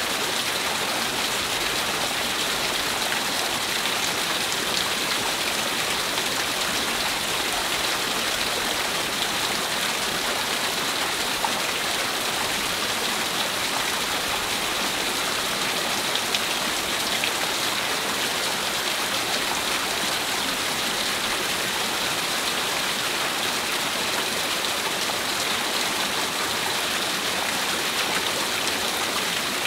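Small waterfall and stream running over rocks: a steady, even rush of water.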